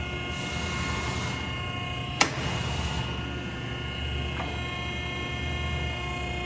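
Hydraulic power unit of a cylinder repair bench running, its pump and motor giving a steady hum with a whine of several fixed tones. A sharp click comes about two seconds in, and the whine changes about four seconds in as the valve levers are worked.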